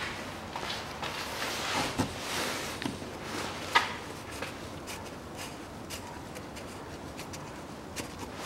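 Scattered light clicks and rustling of a gloved hand and sleeve working up under a car at the oil filter housing, with one sharp knock about four seconds in.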